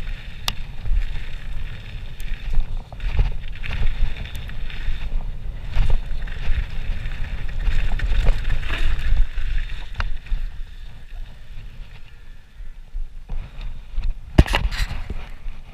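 Downhill mountain bike running fast down a gravel trail: tyres crunching over gravel, the bike rattling with scattered sharp clicks, and wind rumbling on the microphone. It quietens about two-thirds of the way through as the ride eases onto smooth pavement, with a short cluster of sharp clicks near the end.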